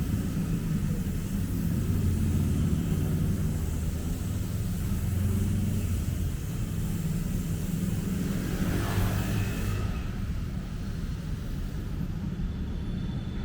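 Steady rumble of road traffic on a busy city road, with one vehicle passing close about two-thirds of the way through.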